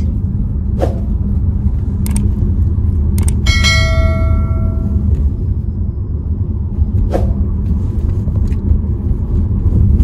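Steady road and engine rumble inside a moving car's cabin. A single bell-like chime rings out about three and a half seconds in and fades over a second or so.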